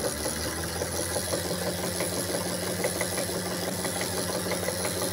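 Small 1000-watt electric motor running on 12 volts, spinning a generator through a drive chain: a steady hum with the chain's running noise.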